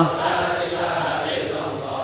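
Large congregation of men chanting Islamic dhikr together, a blended wash of many voices with no single clear lead voice.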